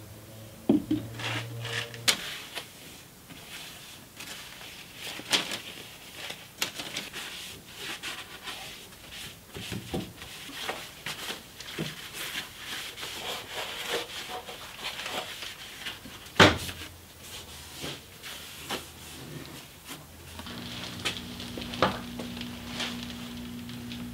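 A hand-held pad rubbing and wiping over primed car body sheet metal in an engine bay, with scattered light knocks and clicks and one sharper knock about two-thirds through. A low steady hum comes in near the end.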